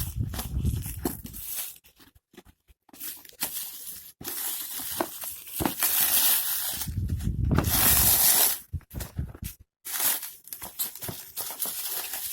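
Shipping packaging being torn open and crinkled by hand: irregular bursts of ripping and rustling with short pauses, the longest and loudest stretch a little past the middle.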